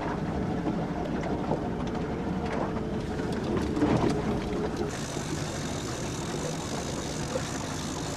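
A 70 hp outboard motor running steadily on a small fishing boat, a low even drone. About five seconds in, more hiss joins it.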